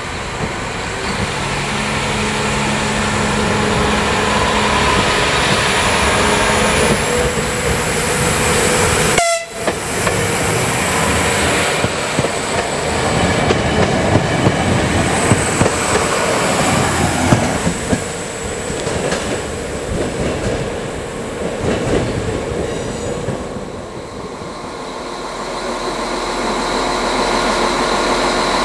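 RA3 diesel railbus running past close by, its engine hum and its wheels clattering over the rail joints. The sound breaks off abruptly about nine seconds in, then the clatter goes on and fades toward the end.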